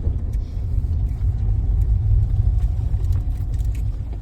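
Mahindra Thar driving along a village road, heard from inside the cabin: a steady low rumble of engine and tyres, with scattered small knocks and rattles.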